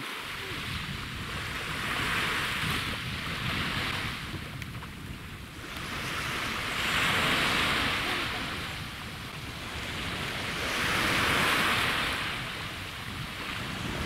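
Small sea waves breaking on a sandy beach, the wash swelling and fading three times about four seconds apart, with wind rumbling on the microphone.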